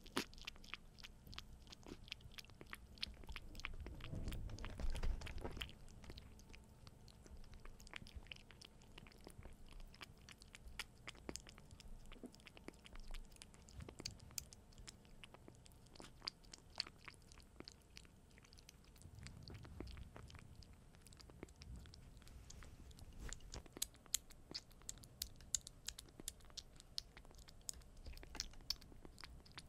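A month-old kitten eating dry cat kibble in water, chewing and crunching with many small sharp clicks of its teeth on the pellets. A low rumble swells twice, loudest about four seconds in and again around twenty seconds.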